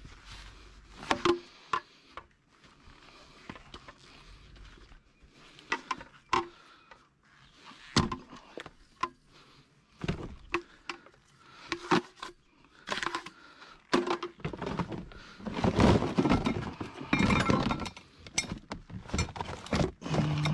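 Junk being handled and tossed while sorting through a curbside hard-rubbish pile: irregular knocks, clunks and clinks of plastic and metal items, with a busier run of clattering near the end.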